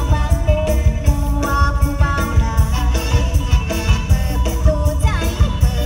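Live Isan mor lam band music played loud through a concert sound system: a heavy, steady bass beat under a melody line, with a falling pitch glide about five seconds in.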